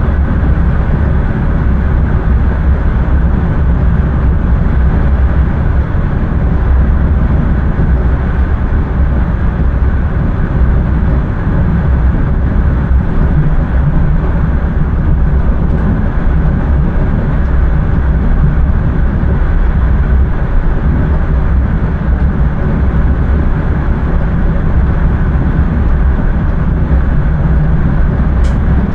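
Passenger train running along the track, heard from inside the driver's cab: a steady, loud rumble weighted to the low end. A few sharp clicks come right at the end.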